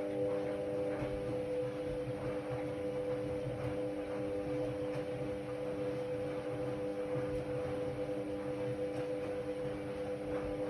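Ariston Margherita 2000 AL 108 D washer-dryer running with a steady electric motor hum.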